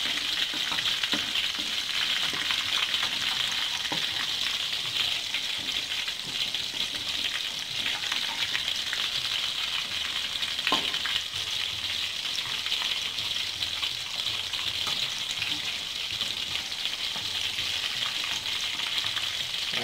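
Egg-and-crumb-coated shrimp frying in hot oil in a wok: a steady sizzle. A metal spatula being worked among the shrimp to turn them adds a few light knocks and scrapes against the pan, one plainer knock about 11 seconds in.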